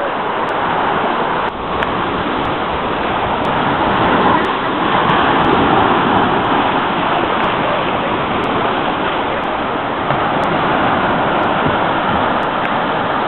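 Small shore-break waves breaking and washing up over sand: a steady rushing surf that swells slightly partway through.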